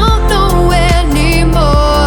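Pop song with a sung vocal line over a steady beat and bass.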